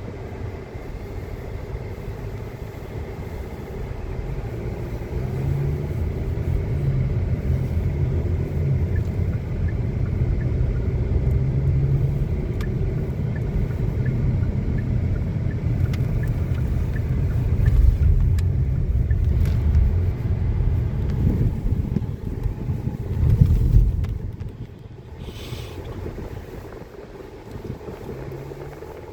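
Strong wind buffeting the microphone, a ragged low rumble that swells in gusts and eases off after about 24 seconds.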